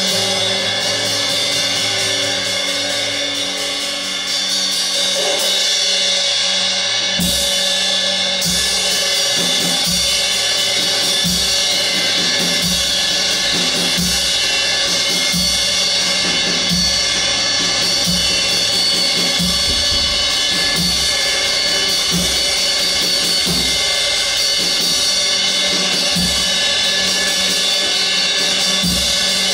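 Live improvised percussion: cymbals ring in a continuous shimmering wash, joined about seven seconds in by a steady low drum beat.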